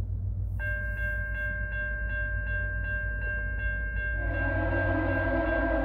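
A diesel passenger train approaching with a low steady rumble. About half a second in, a bell starts ringing about three times a second. About four seconds in, the locomotive's horn comes in with a sustained chord over the bell.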